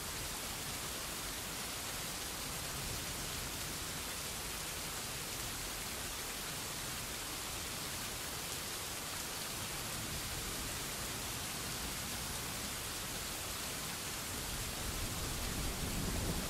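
Steady rain falling and splashing, an even hiss. Near the end a low rumble of thunder starts to build.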